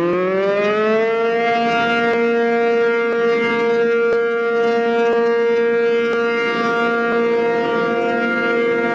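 Outdoor tornado warning siren winding up, its pitch rising until about a second in, then holding one steady wail.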